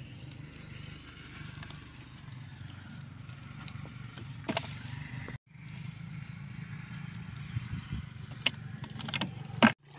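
Rustling and a few sharp clicks as small fish and dry grass are picked out of a cast net, over a steady low rumble; the loudest click comes near the end.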